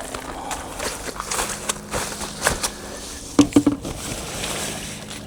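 Irregular rustles, taps and small knocks of a freshly landed carp being handled in the landing net or on the mat, with a short cluster of louder knocks about three and a half seconds in.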